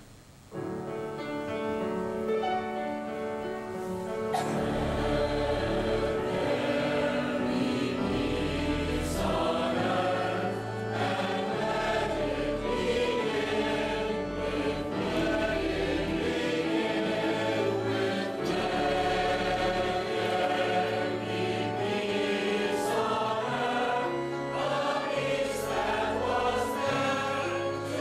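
Church choir singing, starting about half a second in after a brief hush.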